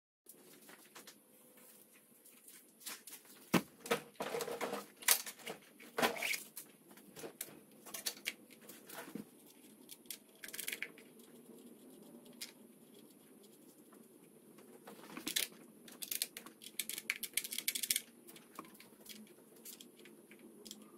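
Irregular clicks, taps and scrapes of metal cable lugs and terminal hardware being handled on golf cart batteries, in two busy spells about four to seven seconds in and again around fifteen to eighteen seconds in.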